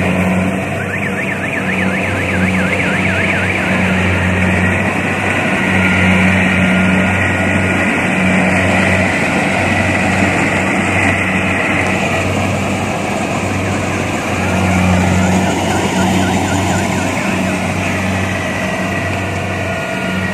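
Kubota rice combine harvester's diesel engine and machinery running steadily as it cuts through the field, a loud continuous hum that swells and eases slightly. A faint warbling tone comes in twice, about a second in and again around fifteen seconds in.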